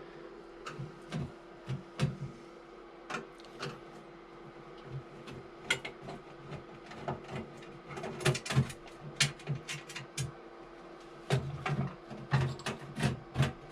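Irregular clicks, knocks and scrapes of hands and tools working on a hot water heater and its fittings, coming thicker in the second half, over a faint steady hum.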